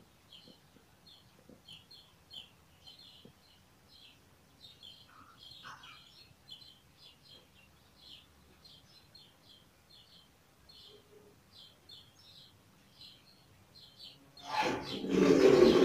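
Small birds chirping steadily in quick, short high notes. Near the end a loud rushing sound cuts in for about a second and a half.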